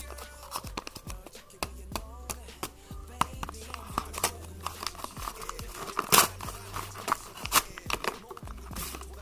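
A blind bag's packaging being torn open and crinkled by hand: a run of sharp rustles and snaps, the loudest about six and seven and a half seconds in. Background music runs underneath.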